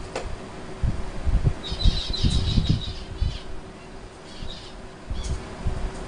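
Zebra finch calling in short runs of high chirps, over low thumps and a faint steady hum.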